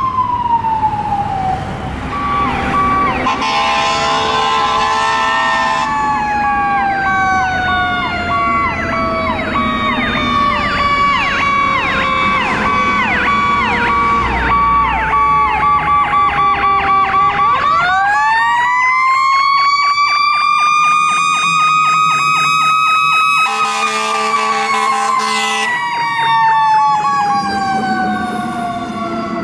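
Emergency vehicle Powercall electronic sirens passing: a falling wail, then a rapid yelp over a pulsing steady tone. Two long horn blasts come in, one early and one late. About two-thirds through, another siren winds up in a long rising pitch, holds, and then slowly falls away toward the end.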